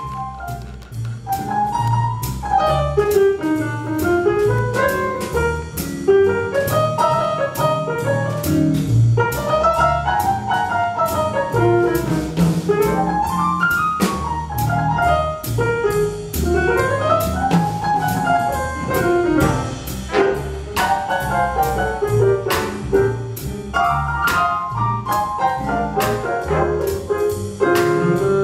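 A university jazz ensemble playing live. One solo instrument plays long runs that rise and fall, over bass notes, piano and steady drums and cymbals.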